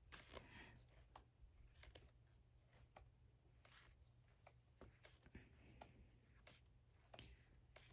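Near silence with faint scattered clicks and rustles from an album's pages and photo cards being handled.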